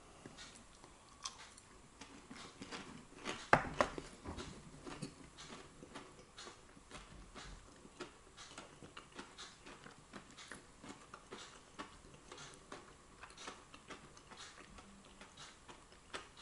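A person chewing a breaded garlic mushroom: a quiet, steady run of small clicks and smacks of chewing, several a second. A couple of louder sharp clacks come about three and a half seconds in.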